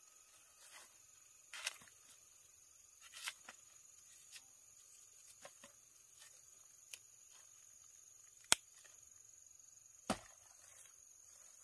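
Faint, irregular clicks and light knocks, about a dozen spread out, the sharpest and loudest about two-thirds of the way in and another about a second and a half later, over a steady thin high-pitched tone.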